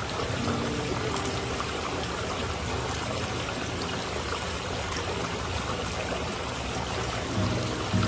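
Steady trickle of running water, with soft music faintly underneath.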